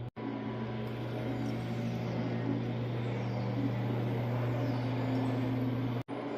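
A steady low mechanical hum. It drops out abruptly twice, once just after the start and again about six seconds in.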